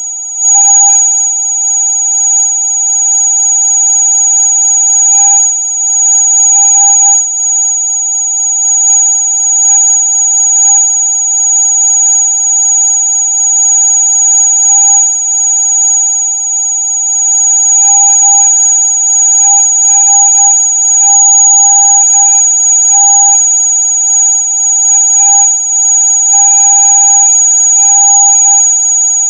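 Electronic rat-repellent sound: a loud, steady, high-pitched electronic whine of several pure tones sounding at once, like an alarm, with short flickering swells that come more often in the second half.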